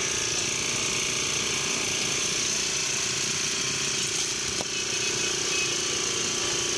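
A motor running steadily: a constant mid-pitched hum with a hiss above it, at an even level throughout.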